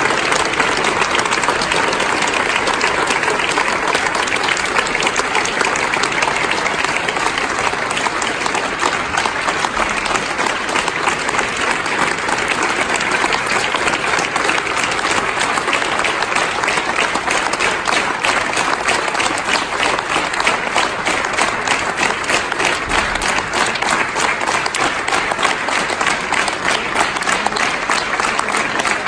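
A large crowd applauding steadily, a dense unbroken patter of many hands clapping.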